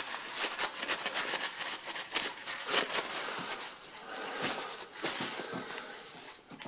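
Cloth wiping small metal calculator parts clean of hardened grease after a solvent has been put on them: a run of irregular scratchy rubbing strokes with small clicks, thinning out near the end.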